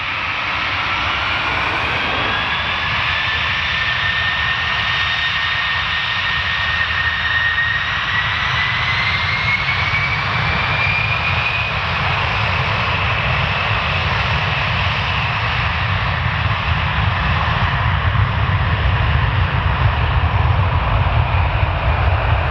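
Jet aircraft engines running: a loud steady rush over a low rumble, with a whine that rises slowly in pitch over the first ten seconds or so.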